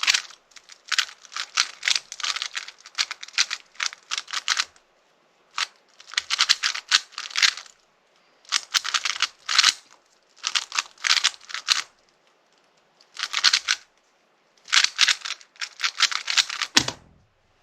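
Speedcube (Rubik's cube) being turned fast during a CFOP solve: rapid plastic clicking in bursts of one to two seconds, broken by short pauses, with a low thump near the end.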